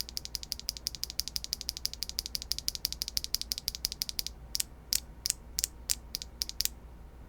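HMX Cosmic Purple linear mechanical keyboard switches, with POM housings and LY stems, being pressed over and over. They make a fast, even run of high-pitched, clacky clicks, then about eight slower, spaced presses that stop about two-thirds of the way through.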